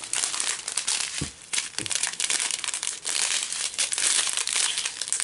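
Small clear plastic bags of diamond-painting drills crinkling continuously as they are handled and leafed through along their strip, easing off briefly about a second in.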